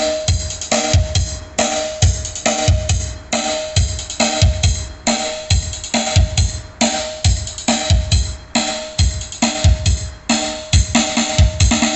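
Music with a steady drum-kit beat: a heavy bass drum about twice a second under cymbals and a repeating mid-range melody.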